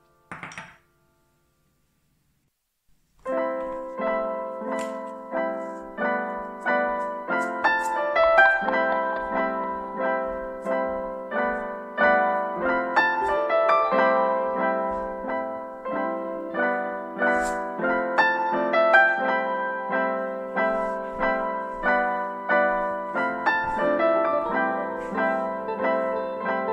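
Background piano music: a steady run of struck, decaying notes that begins about three seconds in, after a brief noise and a short silence.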